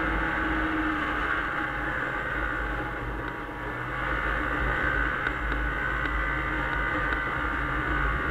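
A 1996 Arctic Cat Bearcat 340 snowmobile's two-stroke engine running steadily under way at riding speed. The sound dips briefly about three and a half seconds in, then picks up again.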